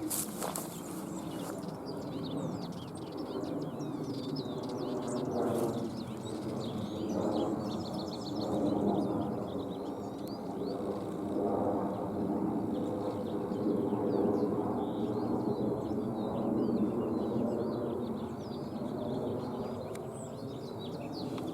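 Small songbirds chirping and twittering, with a quick trill about seven seconds in, over a steady low background hum.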